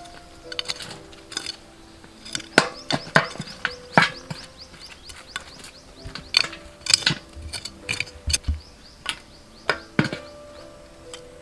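Soil being scraped and heaped against the rim of an upturned aluminium bucket with a flat hand tool. It makes an irregular run of scrapes and sharp knocks, some clinking against the metal bucket and stones.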